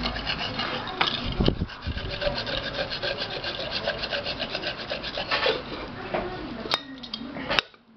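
Coarse metal-grade sandpaper rubbed rapidly back and forth on the rim of an aluminium pressure-cooker lid, a quick scratchy rasping, smoothing the rim so the rubber gasket will seal. Near the end the rubbing stops, followed by two sharp clicks.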